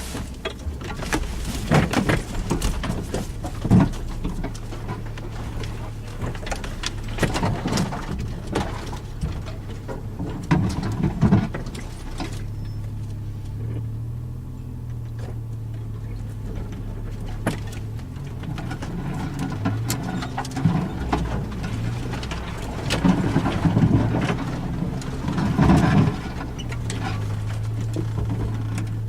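Suzuki Jimny engine running at low revs off-road, its pitch stepping up and down a few times, with repeated knocks and clunks from the vehicle jolting over rough ground, in clusters at the start, around the middle and near the end.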